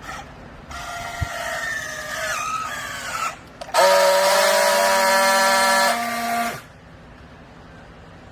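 A machine whine with a wavering, falling pitch, then, about four seconds in, a louder steady whine with many overtones that cuts in sharply and stops after about two and a half seconds.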